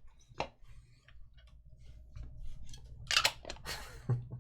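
Trading card packs and wrappers being handled: scattered clicks and small knocks, then two short crinkly rustles of a pack wrapper about three seconds in, and a knock near the end.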